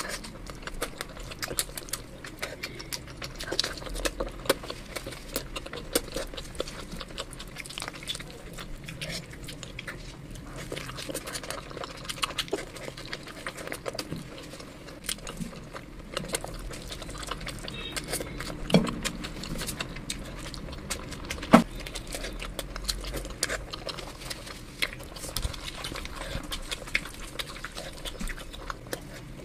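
Close-miked chewing and wet mouth smacks while eating spiced roast chicken and rice, a steady run of short clicking sounds with one louder knock about two-thirds of the way through. Near the end, cooked chicken meat is torn apart by hand.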